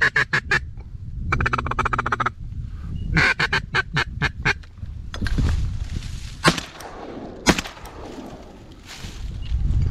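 Ducks quacking in short, rapid strings of loud quacks, three times in the first half. Two sharp bangs about a second apart follow near the middle.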